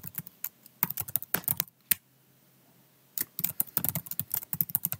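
Typing on a computer keyboard in two quick runs of keystrokes, with a pause of about a second between them.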